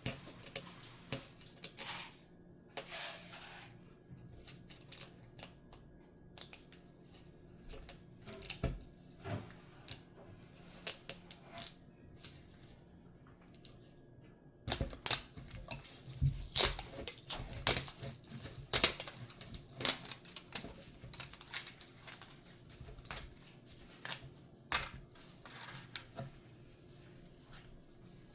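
Irregular clicks, taps and knocks of small toy parts and packaging being handled. They are sparse at first and come thick and fast from about halfway through, with a brief scraping rustle near the start.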